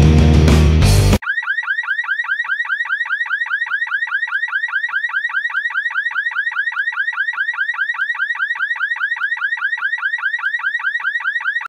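Rock music cuts off about a second in. An electronic alarm then sounds: a high, rising chirp repeated steadily about four or five times a second.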